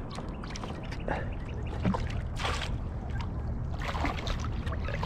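A hooked flathead thrashing at the surface beside a kayak as it is netted: scattered splashes, with a louder splash about two and a half seconds in.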